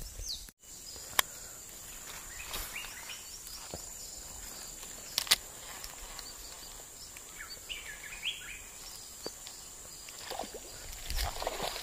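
Wild birds chirping in short, repeated calls over a steady high-pitched insect drone, with two sharp clicks, one about a second in and one about five seconds in.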